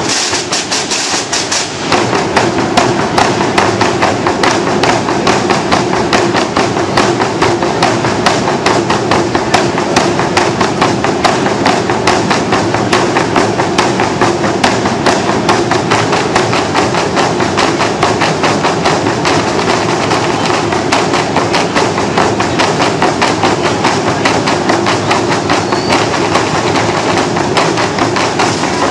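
Drum corps of large bass drums and snare drums playing together in dense, rapid, continuous drumming, which gets louder about two seconds in.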